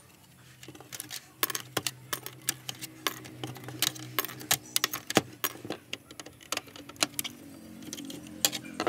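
Small plastic and metal parts of a Sony CK-11 CD radio cassette's case and cassette deck clicking, tapping and rattling as they are prised out by hand and worked with a screwdriver: many irregular sharp clicks, over a faint steady low hum.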